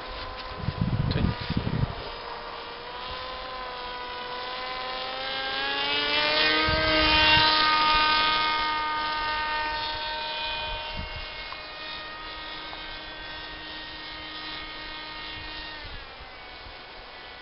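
X8 flying-wing model aircraft's motor and propeller buzzing in flight. The pitched buzz rises and grows loudest as the plane comes close about seven seconds in, then drops in pitch and fades near the end. Gusts of wind on the microphone about a second in.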